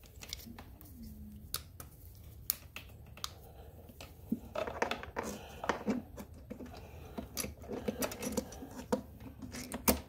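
Scattered light clicks and taps of a Honda EU2000i carburetor and its plastic parts being handled and fitted by hand. They grow busier about halfway through, and a sharper knock comes near the end.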